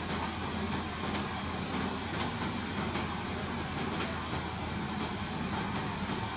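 Steady low hum of an idling car, heard from inside the cabin with the driver's window open, with a few faint ticks about one and two seconds in.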